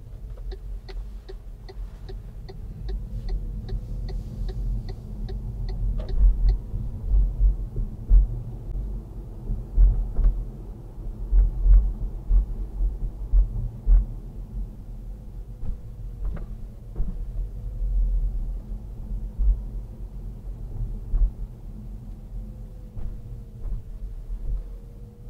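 Car cabin noise while driving: a low road and engine rumble that swells unevenly, heaviest through the middle stretch. Over the first six seconds a turn-signal indicator ticks about twice a second, then stops.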